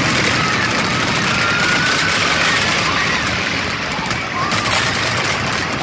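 Fireworks display: a continuous, loud barrage of aerial shells bursting, with dense crackling and bangs overlapping with no pause.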